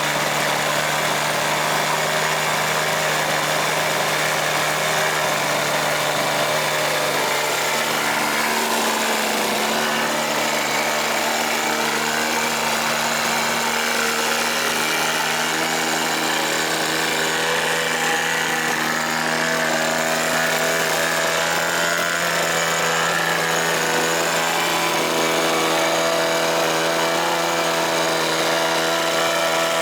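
Small radio-control model-airplane engine running steadily at low speed during its break-in run. Its pitch shifts slightly about eight seconds in.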